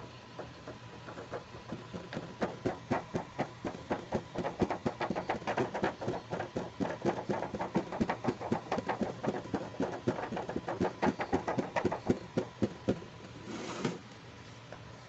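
Fingers rapidly tapping and drumming on the clear plastic of a doll box window and a plastic storage box lid, several taps a second. Near the end there is a short scrape as the plastic box slides across the table.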